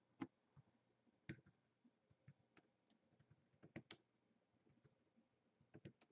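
Faint, irregular keystrokes on a computer keyboard, with two sharper clicks near the start.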